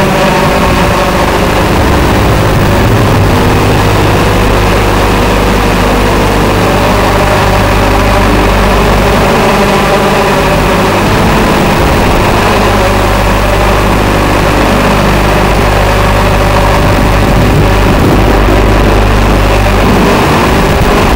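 TBS Gemini mini hexacopter's electric motors and propellers running in flight: a loud, steady buzzing hum with a few slow rises and falls in pitch.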